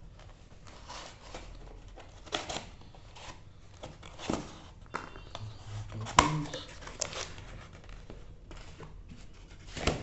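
Phone packaging being opened by hand: irregular rustling, crinkling and tearing with scattered clicks, the sharpest about six seconds in.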